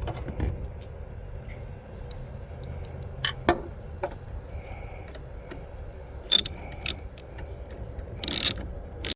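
A handful of irregular sharp clicks and short metallic jingles over a steady low rumble.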